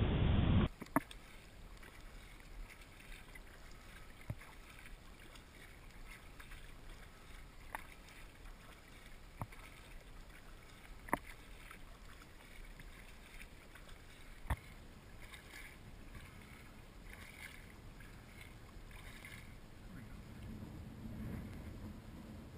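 Kayak being paddled on calm water: quiet splashing and dripping from the paddle blades, with a sharp click every few seconds.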